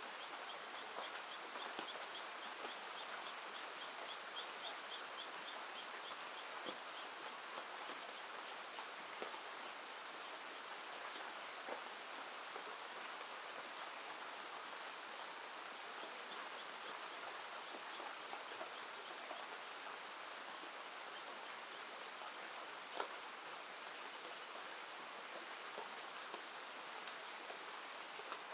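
Steady rain falling, with scattered sharp taps of drops. A faint, rapid, high trill runs through the first few seconds.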